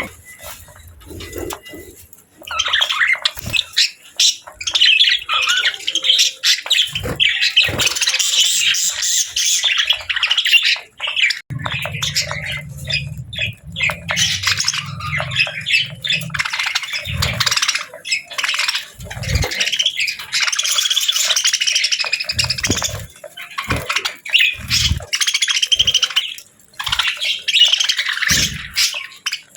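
Budgerigars chirping and warbling continuously, a busy chatter of rapid high chirps with occasional squawks. A low hum runs underneath for about five seconds near the middle, and there are a few short low knocks.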